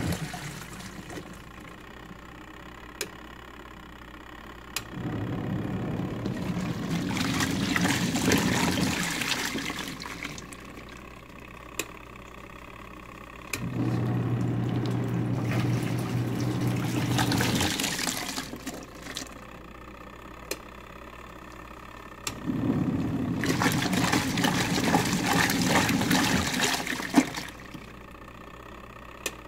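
Twin-tub washing machine's wash tub running in bursts of about four to five seconds: motor hum under churning, sloshing water. Each burst is followed by a pause of about four seconds, three times over.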